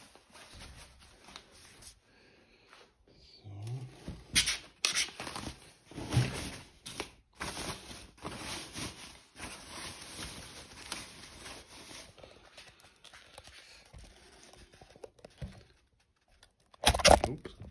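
White packing wrap rustling and crinkling as it is pulled out of a cardboard guitar box, with scraping against the cardboard and irregular handling knocks; a loud burst of rustling comes near the end.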